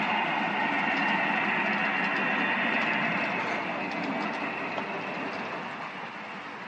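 Model train running along the track, a steady whirr of its small motor and wheels with faint clicks, fading away over the last couple of seconds as it passes.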